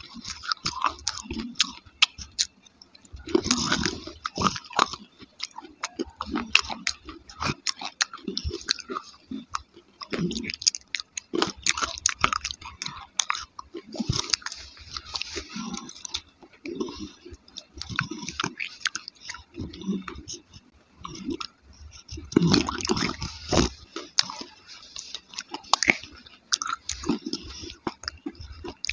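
Close-miked chewing of a soft paste eaten from a spoon: wet, sticky mouth sounds with many sharp lip and tongue clicks, coming in short bunches every second or so.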